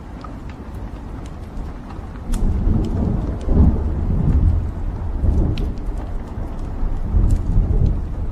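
Wood fire burning in a fireplace: logs crackling with scattered sharp pops, over a low rumble that swells in waves from about two seconds in.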